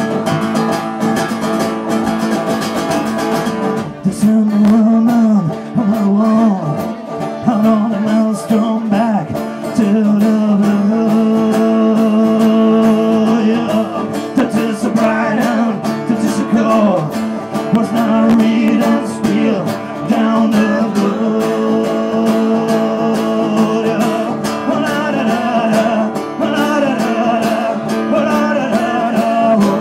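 Live bluegrass-style band playing: a banjo and a strummed acoustic guitar over a drum kit, with a man's singing voice coming in about four seconds in.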